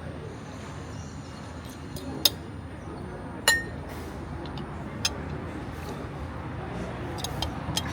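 A handful of sharp clinks spread over several seconds, the loudest about three and a half seconds in with a short ring, over a steady low background rumble.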